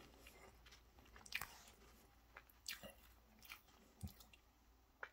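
Faint chewing of a mouthful of soft lemon cake roll with whipped cream: a few soft, brief mouth sounds spaced about a second apart, otherwise near silence.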